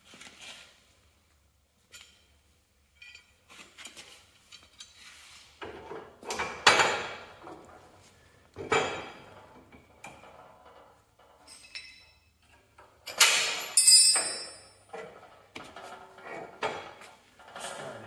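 Scattered metal clanks and clinks from a steel control rod and hand tools being handled while the rod is hooked up to a garden tractor's hydraulic control valve. The loudest clanks, some with a brief ringing, come about three-quarters of the way in.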